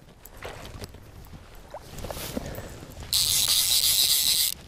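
Small fly reel's click-and-pawl ratchet buzzing for about a second and a half, starting about three seconds in, while a hooked rainbow trout is played on the line.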